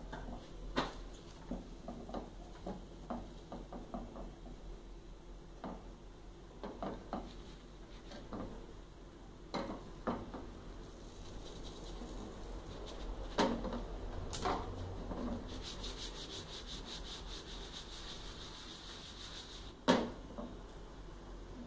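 Plastic spatula scraping and tapping a non-stick frying pan, with the pan shifting and knocking on the gas stove's grate while a crepioca cooks: scattered light clicks and scrapes, a faint hiss through the second half, and a sharp knock near the end, the loudest sound.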